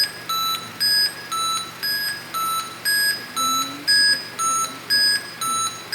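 Ventilator alarm beeping steadily: a lower and a higher tone alternate rapidly, roughly four beeps a second, in an unbroken repeating pattern.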